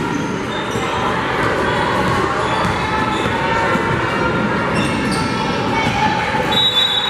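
Basketball dribbled on a hardwood gym court amid spectators' chatter echoing in the hall, with a short high referee's whistle near the end.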